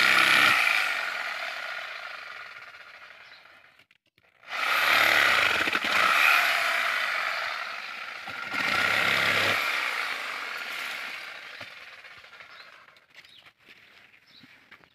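Handheld corded electric cutting tool run in three bursts against dry date palm frond bases: it starts loud at the outset, again about four and a half seconds in and about eight and a half seconds in, each time winding down over a few seconds. It fades out well before the end.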